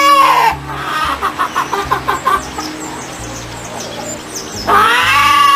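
A hen clucking in a quick run of about eight short clucks, between two long drawn-out animal calls, one ending about half a second in and another starting near the end. Background music with steady low notes runs underneath.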